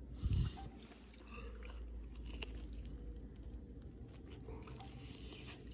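A person quietly chewing a bite of baked Turkish flatbread pizza, with faint crunchy clicks from the crust. There is a low thump just after the start.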